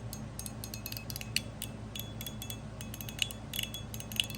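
Titanium mechanical fidget slider being slid back and forth in the hand: a quick, irregular run of small metallic clicks, several with a short high ping, among them an extra crunchy click that is new to the owner.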